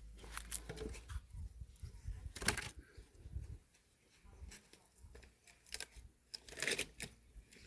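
Scattered light knocks, snaps and rustles of wood and leafy branches being handled and stacked for a bonfire, over a low rumble.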